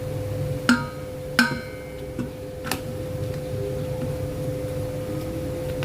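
Metal parts of a shock absorber strut assembly clinking as they are handled: three sharp clinks that each ring briefly, well under a second in, about a second and a half in, and nearly three seconds in, with a fainter tap between the last two.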